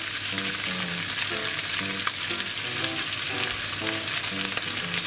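Bacon, onion, green pepper and mushrooms sizzling steadily in a frying pan of hot olive oil.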